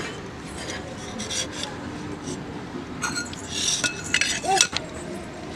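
Scattered light clinks and scrapes of metal kitchenware, busier a little past halfway.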